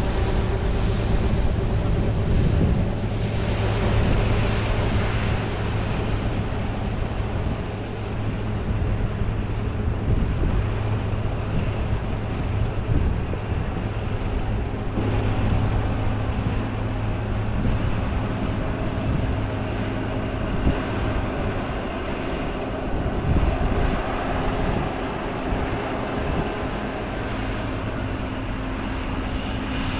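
A vehicle engine running steadily with a low hum and a wash of noise; about halfway through, a higher steady tone joins in.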